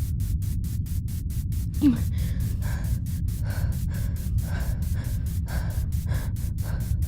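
Background music with a fast, even pulse and a steady low bass. A short low sound slides down in pitch about two seconds in.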